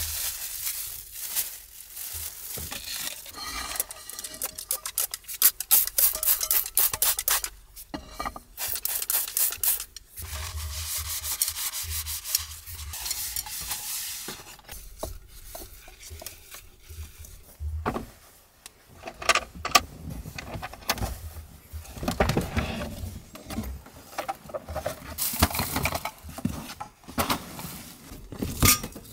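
Kitchen paper and a wet wipe rubbed over a frying pan and other dishes to clean them, a scratchy wiping that comes and goes in strokes, with light knocks of cookware now and then.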